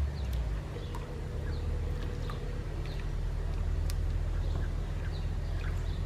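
Metal spoon stirring thick custard in a saucepan, with faint scrapes and a few light clicks against the pan, over a steady low hum.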